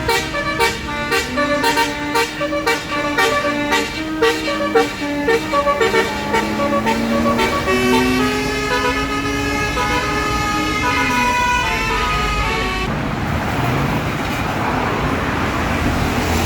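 Basuri multi-tone bus air horn ('telolet') playing a melody of stepping notes: quick pulsed notes at first, then longer held notes. It stops about 13 seconds in, and a steady rushing noise takes over.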